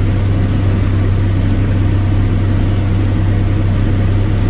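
Farm tractor engine running steadily with a constant low hum while pulling a hay baler through the field.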